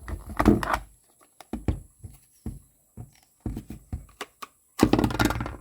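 Handling noise of a 9mm Taurus PT111 pistol being worked out of its holster by hand: a run of irregular scrapes, rustles and knocks, with a longer, louder scrape near the end.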